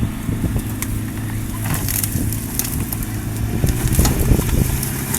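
Off-road vehicle's engine running steadily at low revs while crawling over rocks, with scattered crunches and clicks of tyres on rock and gravel.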